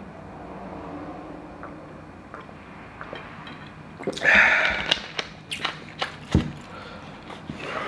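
Close-up eating sounds: a loud crunchy bite about four seconds in, followed by scattered wet chewing clicks, from a person eating a fried chicken sandwich.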